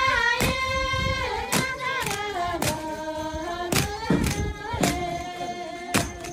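Background music: long held, choir-like singing over a steady beat about once a second.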